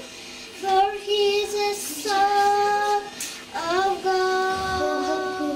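A young girl singing solo into a microphone, holding long notes in two phrases with a short break between them.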